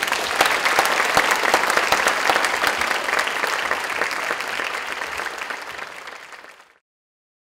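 Audience applauding, a dense patter of many hands clapping that tapers off and is then cut off abruptly near the end.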